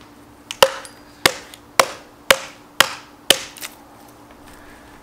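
Estwing hatchet chopping into a large log: six sharp strikes about half a second apart, finishing off the cut, then the chopping stops.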